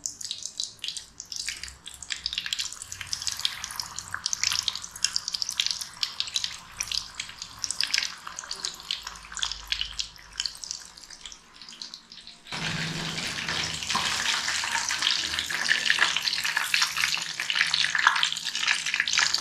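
Batter-coated chicken lollipops deep-frying in hot oil in a kadai: a crackling sizzle that becomes suddenly louder and denser about twelve seconds in.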